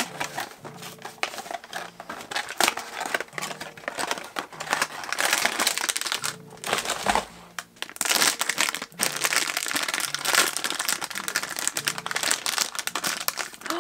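Metallic foil blind-bag wrapper crinkling and crackling as it is handled and torn open, with a figure pulled out of it near the end.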